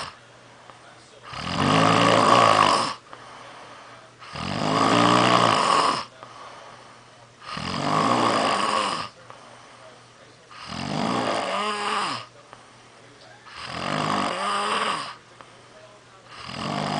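A person snoring in a steady rhythm: six loud snores, one about every three seconds, with quieter breathing between them.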